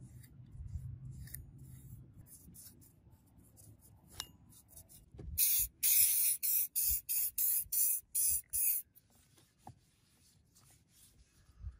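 Trigger spray bottle squirting water onto a blackened steel axe head: about ten quick hissing squirts in a row, starting about five seconds in and lasting about three and a half seconds. Before them, faint brushing on the metal.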